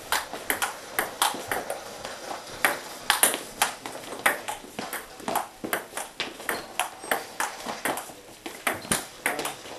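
A table tennis rally: the ping-pong ball clicks sharply off the paddles and the table, several quick knocks a second in a steady back-and-forth.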